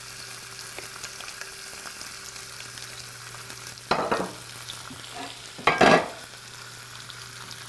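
Lamb knuckles sizzling as they sear in oil in a grill pan: a steady frying hiss. About four seconds in there is a knock as the pepper grinder is set down, and about two seconds later a louder, ringing clatter.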